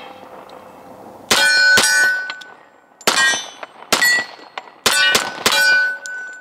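Seven shots from a .45 ACP 1911 pistol, a Kimber Team Match II, fired at an uneven pace over about four seconds, each hit setting steel targets ringing with a clear metallic tone that dies away.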